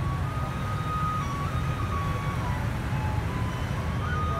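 Steady low rumble of street traffic, with a faint simple tune of single held notes stepping up and down over it.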